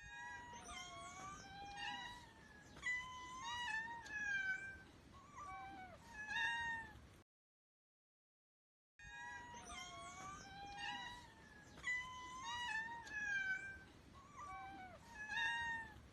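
A cat meowing over and over, a string of short gliding meows. The same run of meows plays twice, with a couple of seconds of silence between.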